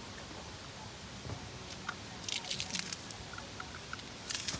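Crunching and crackling of dry leaves and stony soil underfoot, in two short clusters, about two seconds in and again near the end, over a faint steady background hum.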